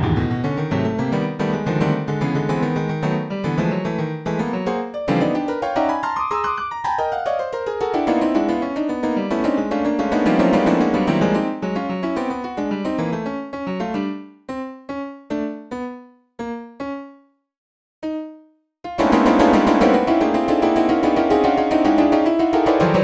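Strange, very dense piano-like keyboard music of rapid overlapping notes, with a run that sweeps up and back down. About two-thirds of the way through it thins out to single decaying notes with brief silences between them. The dense clatter of notes then resumes near the end.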